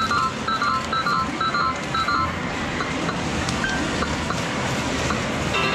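Sigma Red Dog Poker medal machine giving about five short electronic beeps, one every half second or so in the first couple of seconds, as medals are fed into its coin slot and credited. Behind them is the steady din of a busy game arcade.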